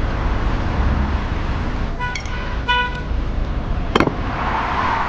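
Steady outdoor background rumble like distant traffic, with two short horn toots about two seconds in and a single sharp click near four seconds.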